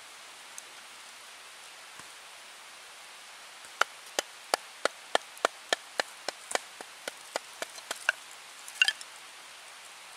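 A run of sharp clicks, about three a second for some four seconds, then a brighter cluster near the end: sparks being struck into the feather-stick kindling of a wooden Swedish-torch cup until it lights.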